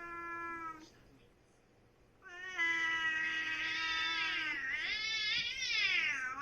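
Domestic cat yowling in a fight: one long, drawn-out threat yowl ending about a second in, then after a short pause another long yowl that wavers up and down in pitch.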